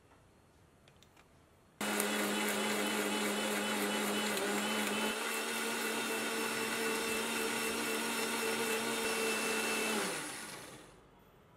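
Electric mixer grinder (mixie) grinding, likely the fried coconut and spice paste for the gravy. It starts suddenly about two seconds in, runs steadily for about eight seconds, then winds down with falling pitch once switched off.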